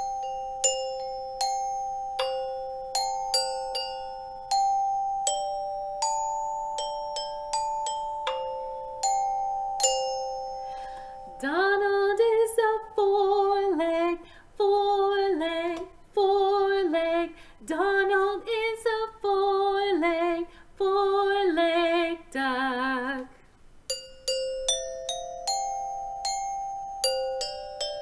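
Glockenspiel struck with mallets in an improvised tune of ringing two-note chords. From about eleven seconds in, a woman's wordless singing with a wavering vibrato takes over in short phrases for some ten seconds, ending on a lower note. Then the glockenspiel picks up again.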